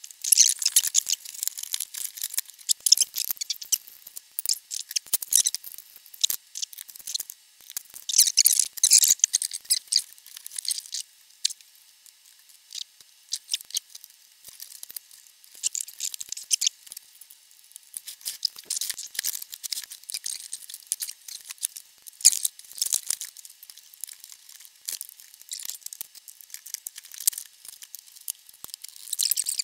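Hands handling power cords, tools and a wooden record player cabinet: scattered small clicks, taps and rustles. The clusters are denser about a second in, around eight to ten seconds in, around sixteen seconds in and near the end. The sound is thin and high, with nothing low in it.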